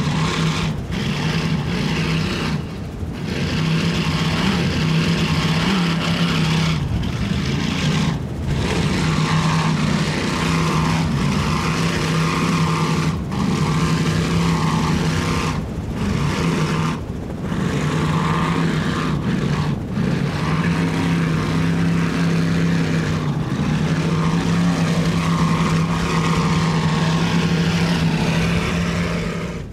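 Big Sterling Performance marine engines on a 38-foot Skater catamaran running hard with a loud, steady, deep drone. The drone is broken by several short dips.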